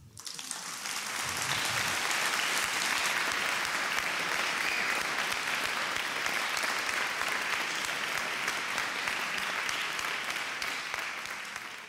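Audience applauding at the end of a talk. It builds up over the first second, holds steady, and starts to thin out near the end.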